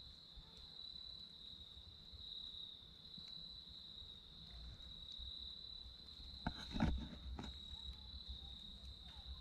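Crickets trilling steadily at one high pitch. About two-thirds of the way through, a brief rustle with a few sharp clicks is the loudest sound.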